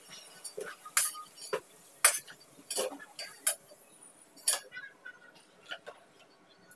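Metal spatula clinking and scraping against an aluminium kadai and a steel plate as fried potatoes are lifted out of the oil, in sharp clinks about once a second that grow fewer and fainter after about five seconds.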